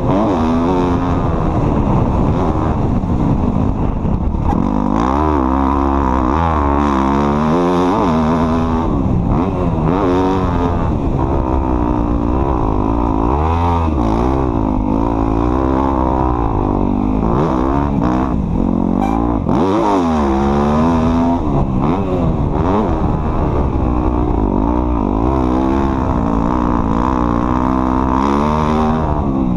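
Off-road vehicle engine running loud and continuously under constantly changing throttle, its pitch rising and falling every second or two.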